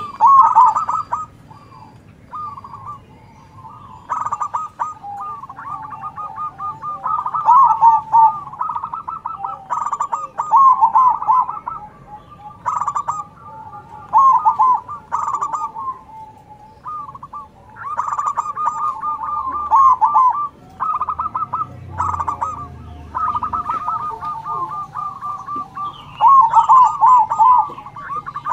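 Zebra doves (perkutut) singing their rolling, staccato coo phrases, one bird answering another. The phrases repeat almost without pause, with a few short breaks.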